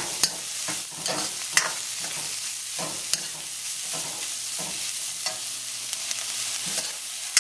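Sliced bell peppers, carrots and onion sizzling in hot oil in a wok while a spatula stirs them, with a steady hiss and a few sharp clicks of the spatula against the wok.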